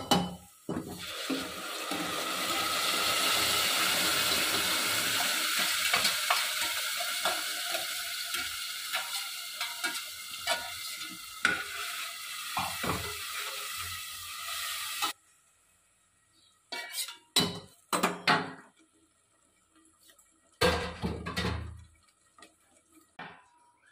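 Tomato paste hitting hot oil and fried onions in a pressure cooker, sizzling loudly while a metal spoon scrapes and clinks as it is stirred in. The sizzle cuts off suddenly about fifteen seconds in, leaving a few scattered clinks and knocks.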